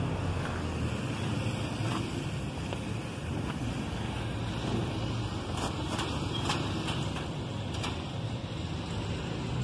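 Steady outdoor background noise: a low rumble and hum, with a few faint clicks in the second half.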